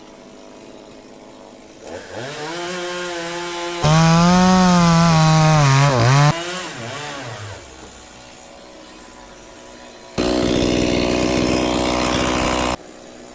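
Two-stroke Stihl chainsaw idling, then revved up about two seconds in and cutting into coconut trunk wood for about two seconds, the engine pitch sagging under load before it drops back to idle. A second loud cut starts about ten seconds in and stops just before the end.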